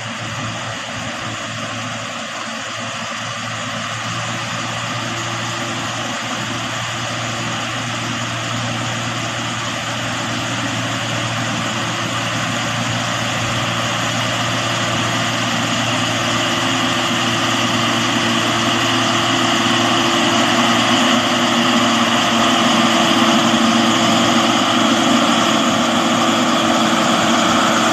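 LiuGong motor grader's diesel engine running steadily as the grader works its blade through wet mud, growing gradually louder as it draws near.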